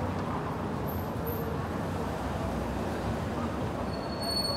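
City street ambience: a steady hum of road traffic with faint voices of passers-by. Near the end a thin, high, steady squeal comes in.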